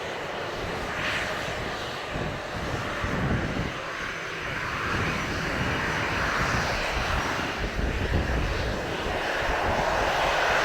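Jet aircraft engines running: a steady roar that grows louder toward the end.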